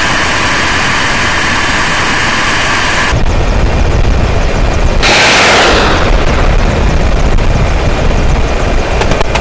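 Helicopter turbine and rotor noise, steady. It is first heard from on board, then after about three seconds from outside as a Mi-28N attack helicopter flies close by. A falling whoosh comes about halfway through.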